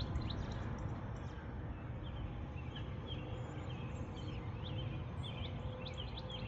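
Small songbirds chirping, with many short quick calls scattered throughout over a steady low background rumble.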